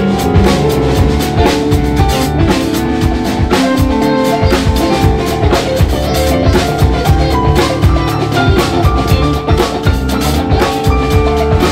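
Live band playing: a drum kit with busy kick, snare and rimshot hits over bass guitar, piano and electric guitar.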